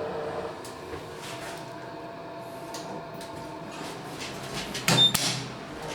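Toshiba Order Luminous hydraulic passenger elevator car travelling between floors, heard inside the car: a steady hum with a faint whine, and a short sharp knock about five seconds in.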